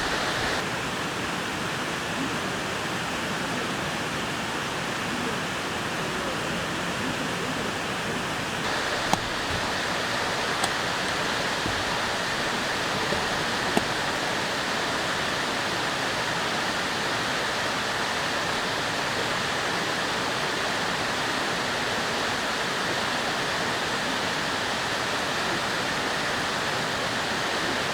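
Mountain stream rushing steadily close by, with a few faint clicks between about 9 and 14 seconds in.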